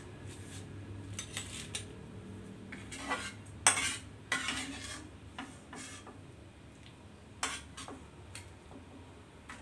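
A metal spatula scraping and clinking against a steel wok and a ceramic bowl as fried tomato pieces are scooped out of the oil. The knocks and scrapes come at irregular intervals, the loudest about four seconds in.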